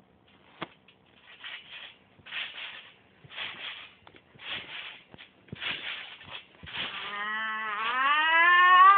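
Trampoline springs creaking with each bounce, a short burst about once a second. About seven seconds in, a long drawn-out vocal call starts, rising in pitch and getting louder for about two seconds, then cuts off abruptly. It is the loudest sound.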